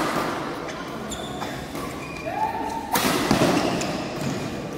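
Badminton rackets striking the shuttlecock: sharp cracks that ring in a large hall, one at the start and another about three seconds in. A short squeak comes just before the second.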